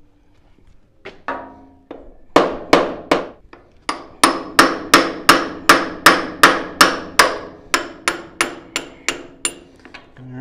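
Hammer striking a screwdriver wedged behind the splined steering arm on a Ford Jubilee tractor's steering gearbox, driving it in to pop the tight arm loose. A couple of blows about a second in, then about twenty sharp, ringing metal-on-metal strikes at a steady two to three a second, stopping near the end.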